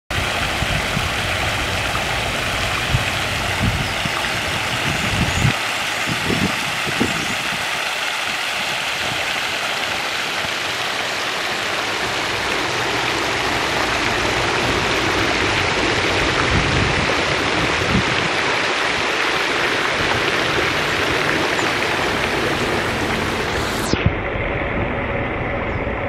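Water from a round fountain's ring of jets and central spray splashing steadily into its basin, a loud even rushing hiss. About 24 seconds in, the bright upper part of the hiss drops away sharply, leaving a duller, steadier sound.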